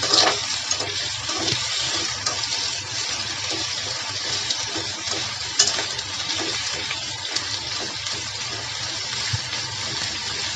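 Chicken, potato and carrot pieces sizzling in oil in a wok while being stirred with metal tongs, with sharp clacks of the tongs on the pan near the start and about halfway through.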